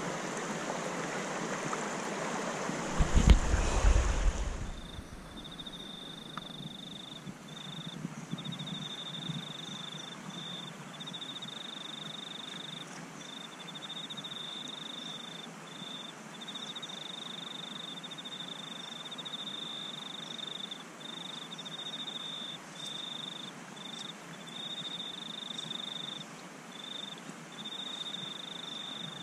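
Shallow river water rushing over stones close by, with a loud low rumble on the microphone about three seconds in. After about five seconds the water is fainter and an insect's high, steady trill, broken by brief gaps, carries on over it.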